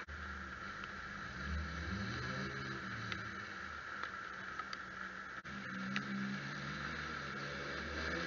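Ford 250 cross-flow straight-six in a 1976 Ford F250 running and revving as the truck drives circles through mud, its pitch climbing twice under throttle, over a steady hiss.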